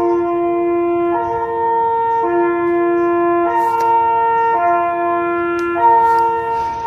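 Compressed-air two-tone fire siren sounding the fire-alarm signal: two steady horn tones alternate, each held a little over a second. A few brief crackles come through near the middle and end.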